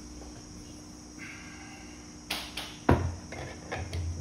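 Heavy steel hand tools knocked and set down on a hard surface: a few sharp clanks a little over two seconds in, the loudest near three seconds, then a run of lighter clicks.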